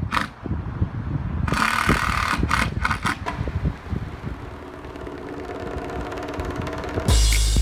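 Short bursts of a cordless drill over low outdoor rumble. Electronic music with a heavy drum beat starts near the end.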